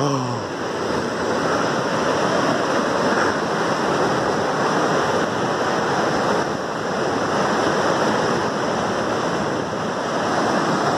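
Steady rushing of a waterfall and of water pouring over a small stone weir below it.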